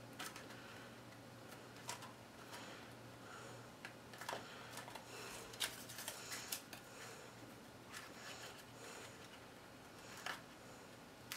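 Faint handling of cut cardstock pieces being glued down: scattered light taps, clicks and brief paper rustles, over a steady low hum.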